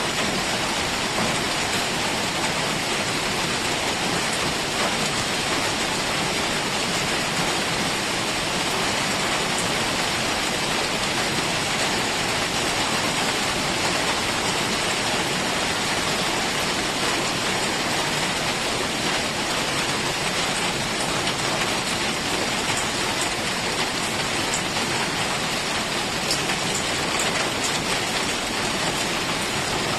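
Heavy rain falling steadily: an even, unbroken hiss of many drops, with a few faint separate drop ticks near the end.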